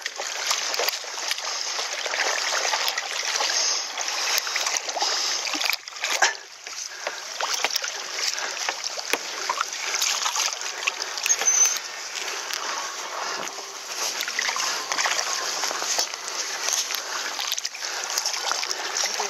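Water splashing and sloshing as a person wades in shallow water alongside a sailing kayak trimaran, pushing it off. The splashing runs on without a break, with a brief lull about six seconds in.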